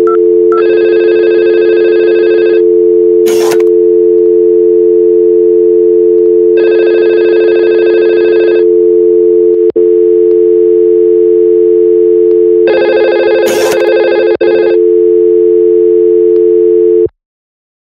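Simulated telephone sounds from Cisco Packet Tracer's virtual phones: a steady two-pitch dial tone, with a ringing tone sounding three times for about two seconds each, about six seconds apart. There are two short sharp clicks, and the dial tone cuts off suddenly near the end.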